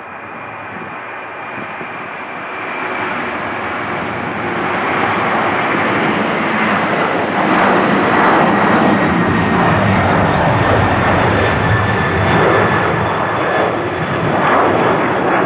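Boeing 747-400's four jet engines at takeoff thrust as it lifts off and climbs out, a loud, rough rushing noise that builds over the first half and then holds. A faint thin whine sits above it, sliding slowly lower in pitch.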